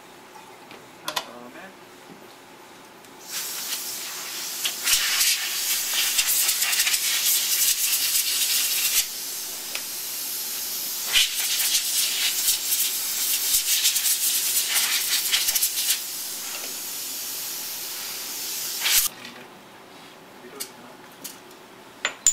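A stream of compressed gas hissing from a hose, used to dry rinsed glass coverslip containers. It starts about 3 seconds in, eases a little partway through and cuts off suddenly near the end. A few small clicks of glassware being handled come before and after it.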